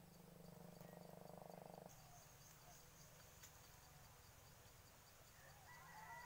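Faint frog croaking: a rapid pulsed trill over the first two seconds that stops abruptly. A faint steady high insect hum runs beneath, with a few faint chirps near the end.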